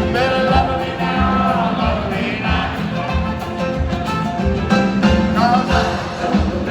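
Live band music with a steady beat, recorded from the crowd at a rock concert.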